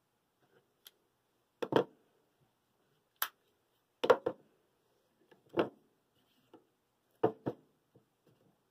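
Plastic spring clamps being handled and snapped onto a plywood gear and drilling jig on a workbench: about five sharp clacks and knocks, several in quick pairs.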